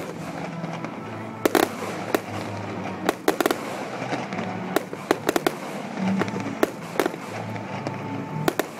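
Aerial fireworks shells bursting overhead: a string of sharp bangs at irregular intervals, many coming in quick clusters of two to four, with crackle between them.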